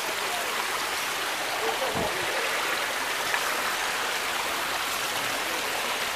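Muddy rainwater runoff rushing steadily down an unpaved street.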